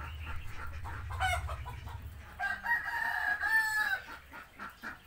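Rooster crowing once: a long call lasting about a second and a half that drops at the end, with chickens clucking around it.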